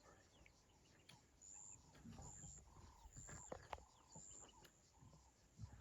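Faint bush ambience: a bird repeating a short call about once a second, with soft low rustles.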